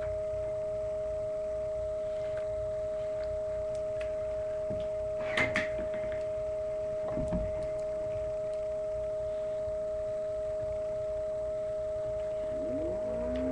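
A steady, unbroken two-pitch tone like a singing bowl or tuning fork. A few light clicks and taps come about five and a half and seven seconds in from a homemade paper bolt-action rifle being handled. Near the end a rising tone starts.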